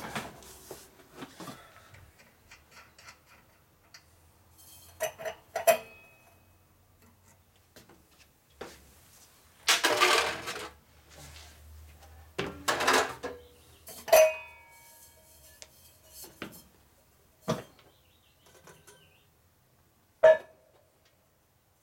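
Metal tools and parts clinking and clanking as the air compressor's pump is worked on by hand: a string of sharp metallic knocks, a few ringing briefly, and two longer stretches of rattling and scraping partway through.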